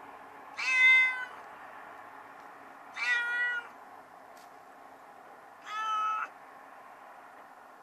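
A kitten trapped at the bottom of a concrete well meowing up the shaft: three calls, each under a second, about two and a half seconds apart, the first the loudest.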